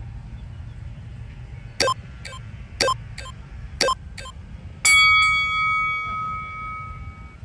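Workout interval timer signalling the end of a 20-second Tabata work period: three short countdown beeps about a second apart, then a long ringing tone that fades away over a couple of seconds.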